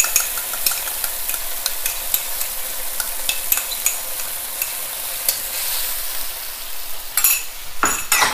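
Sauce sizzling in a hot wok while it is stirred with a wooden spatula, with frequent small clicks and scrapes of the utensil against the pan. A few louder knocks come near the end.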